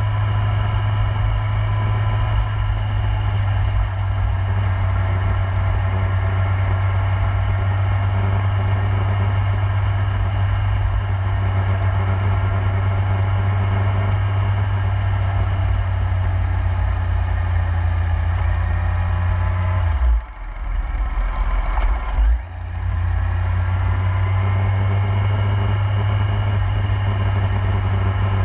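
2008 Yamaha YZF-R1's inline-four engine running steadily at highway cruising speed, heard from the rider's position. About two-thirds of the way through, the engine note drops away for a couple of seconds, then picks back up to the same steady level.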